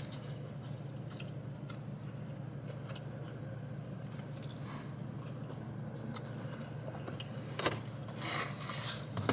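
Quiet eating sounds: a plastic fork scraping and picking at salad in a plastic takeout container, with chewing, over a steady low hum. Near the end come a sharp click and a brief plastic rustle as the container is handled.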